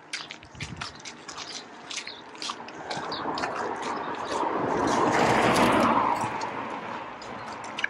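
Footsteps crunching in snow at a steady walking pace. A vehicle approaches and passes, its noise swelling to loudest about five to six seconds in and then fading.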